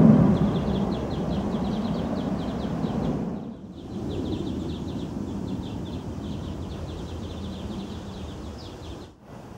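Tram running on the rails with a low rumble, loudest at the start and fading away, then cut off about three and a half seconds in. A lower outdoor hum and a steady, rapid high chirping carry on through the rest.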